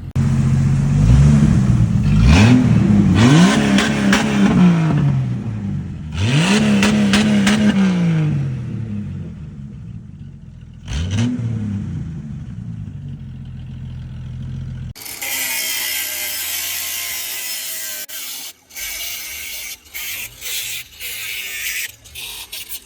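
Jeep engine being revved: about four blips in the first dozen seconds, each rising and falling in pitch, with the engine idling in between. About fifteen seconds in, the engine sound stops suddenly and is replaced by a steady hiss broken by short gaps.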